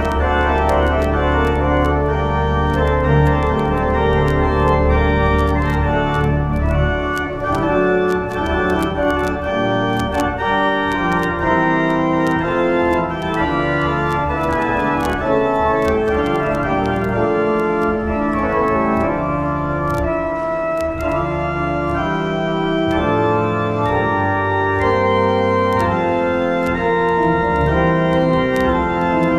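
Church organ playing slow, sustained chords, with deep bass notes held under them for the first several seconds and again near the end.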